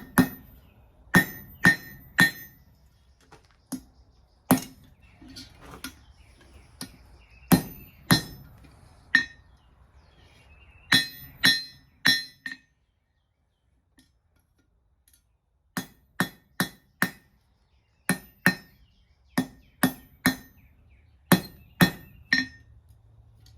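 Hand hammer striking a small forged bar on an anvil, in single blows and quick runs of two or three, each with a bright metallic ring: straightening the head of a small forged hammer pendant. The blows stop for about three seconds in the middle, then resume in a steady series.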